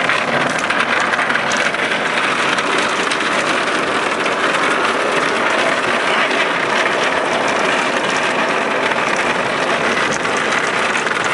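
A boat towed across the ground behind a truck: a loud, steady rushing and rattling with no pauses, and light ticks scattered through it.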